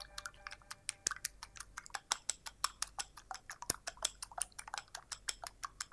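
A fork beating a raw egg in a small glass bowl, clinking against the glass in rapid, uneven clicks, about five or six a second. The egg is being whisked into an egg wash for glazing bread.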